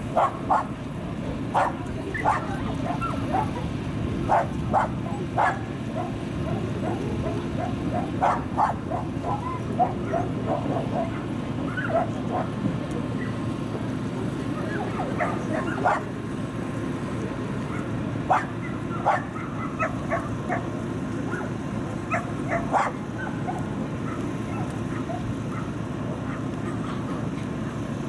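Dogs barking: short barks come irregularly, sometimes several in quick succession, and thin out in the last few seconds, over a steady low background noise.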